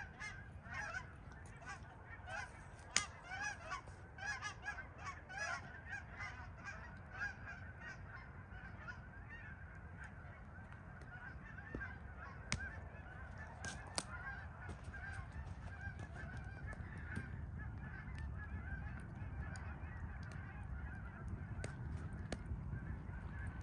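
A flock of Canada geese honking as they fly over: many overlapping calls that thin out and grow fainter after about ten seconds.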